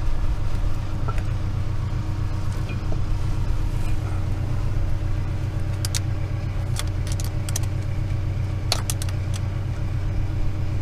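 An engine idles steadily underneath, with a few sharp metallic clicks from about six to nine seconds in as pliers touch the tractor's transmission gears.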